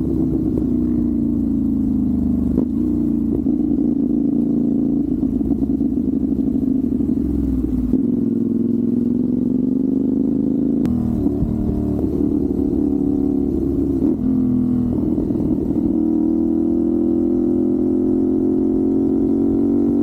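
CFMoto 450SR's parallel-twin engine under way, its note falling and rising as the rider works through the gears. The pitch jumps abruptly a few times, about three seconds in, around eleven seconds and again near fourteen seconds, before climbing again: gear changes with rev-matching throttle blips. Wind rumble on the microphone is heard underneath.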